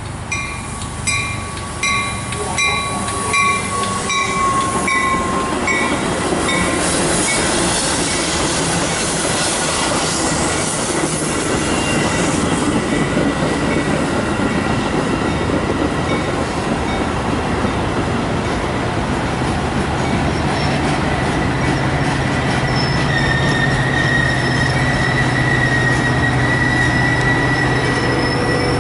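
Metra commuter train's bilevel gallery coaches passing close at speed, a dense rumble and clatter of wheels on the rails. A bell rings about twice a second at the start and fades out about six seconds in. From about halfway through, a thin steady wheel squeal rides over the rumble.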